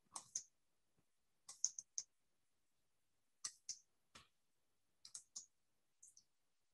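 About a dozen sharp, quiet clicks of computer input, coming irregularly in small clusters of two or three.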